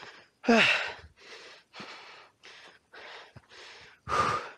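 A person panting hard while climbing steep stone steps, out of breath from the climb. Short, rasping breaths come about two a second, with a louder voiced gasp falling in pitch about half a second in and another loud breath near the end.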